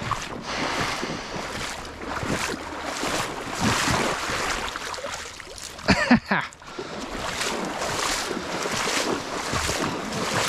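Wading through a shallow, stony creek: water sloshing and splashing around the legs in uneven swells, with a short, louder burst about six seconds in.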